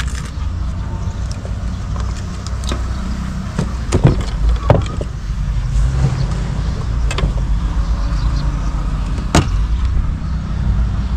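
Sharp knocks and bumps of gear being moved about in the back of a car, over a steady low rumble.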